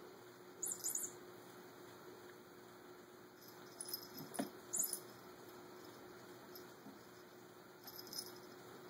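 A kitten playing in a cat-tree perch: light metallic jingling clinks in short bouts, about a second in, around four and five seconds in, and near the end, with a soft knock around four seconds in.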